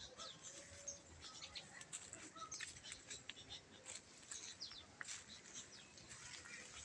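Sooty-headed bulbul (kutilang) singing: a faint, busy run of short quick chirps and whistled notes that sweep up and down in pitch.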